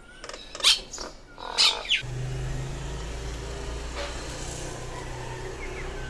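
A common myna gives two loud, harsh calls in the first two seconds. After that a steady low hum, like a distant engine, runs on with faint bird chirps over it.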